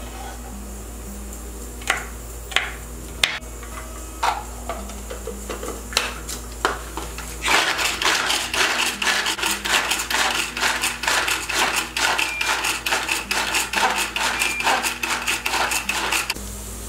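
Small red pull-cord hand chopper: a few separate clicks as garlic cloves go into the bowl and the lid goes on. About halfway through, the cord is yanked over and over, a fast run of sharp rattling strokes at about four a second as the blades spin through the garlic, stopping shortly before the end.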